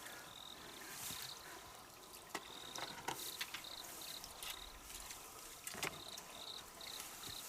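Faint insect chirping: a short high note repeated about twice a second, with a few scattered light clicks.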